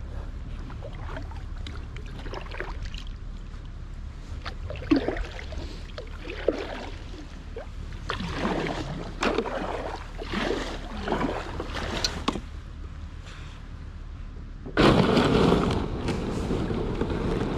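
Kayak paddle strokes dipping and splashing in river water, irregular and uneven, over a steady low rumble of wind on the microphone. Near the end, a sudden louder rush of noise lasts about a second.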